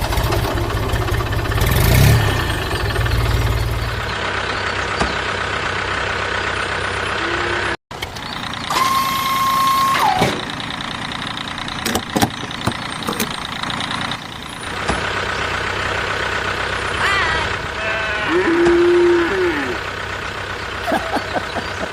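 A motor vehicle engine running steadily, with a single long horn-like beep about nine seconds in.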